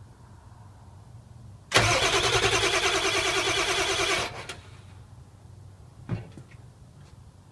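Ford 7.3 L Power Stroke turbo-diesel V8 cranking on the starter for about two and a half seconds with an even, rapid chugging, then stopping without firing: a cold start with the glow plugs disconnected, and the engine doesn't want to start. A single short thump follows a couple of seconds later.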